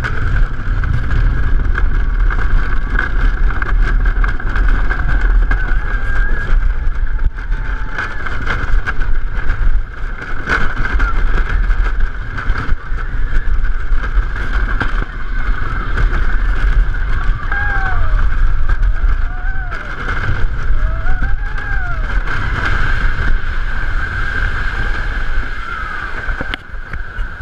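1946 Comet wooden roller coaster train running over its track: a loud, continuous rumble and rattle with wind buffeting the microphone and a steady high squeal above it. It eases off near the end as the train slows into the covered station.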